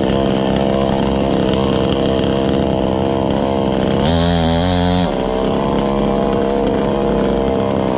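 Gasoline two-stroke chainsaw engine running steadily, held in hand. About four seconds in, its pitch wavers briefly for about a second, then settles back.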